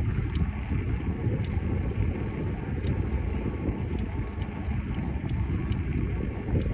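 Wind buffeting the microphone and tyre rumble on a moving bicycle: a steady low rumble with faint light ticks scattered through it.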